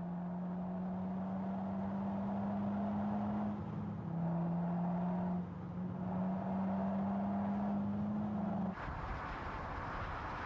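A 2010 VW Golf Mk6 GTI's turbocharged 2.0-litre four-cylinder engine and exhaust droning under power, the pitch slowly climbing. It drops suddenly about three and a half seconds in and jumps back up about two seconds later. Near the end the engine note cuts off abruptly, leaving a steady rushing noise.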